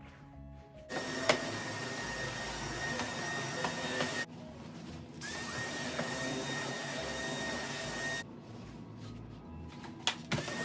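A small electric cleaning appliance's motor with a steady high whine, switched on three times: about a second in for three seconds, again for about three seconds, and briefly at the very end. Its pitch rises briefly as it starts. Faint background music plays between the runs.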